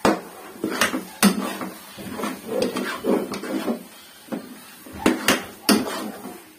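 Metal spoon scraping and clinking against a stainless steel karahi while stirring thick semolina-and-jaggery halwa, with repeated sharp knocks of the spoon on the pan and scraping between them. The halwa is stirred without pause to keep it from sticking to the bottom.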